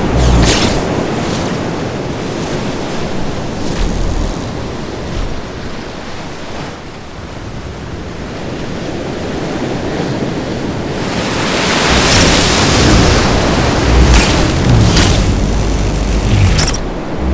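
Sound-designed noise ambience like wind or surf. It swells about twelve seconds in, with a few short sharp sweeps.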